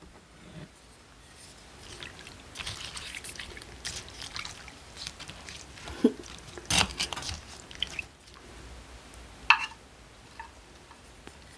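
Utensils stirring a bowl of cold broth with slushy ice and acorn jelly: the liquid sloshes and trickles, with scattered scrapes and clicks against the bowl. The loudest knock comes about two thirds of the way in, and a ringing clink follows near the end.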